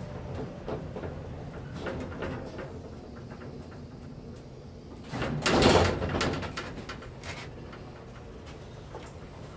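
Sliding doors of a 1975 KONE inclined traction elevator moving, with a loud thump a little past halfway.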